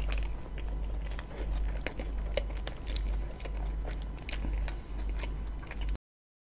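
Close-miked mouth chewing a mouthful of roti John (soft bread with meat and egg filling), with many small wet mouth clicks over a low steady hum. The sound cuts out completely about six seconds in.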